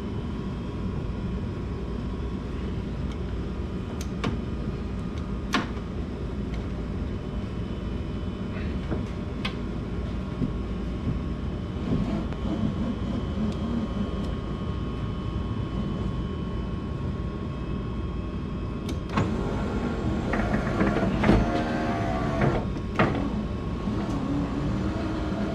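Power window motor and regulator in a Mazda FC3S RX7 door running the glass, which binds and catches in its run. There is a steady low hum throughout, a few sharp clicks, and a louder, uneven stretch of straining and creaking near the end.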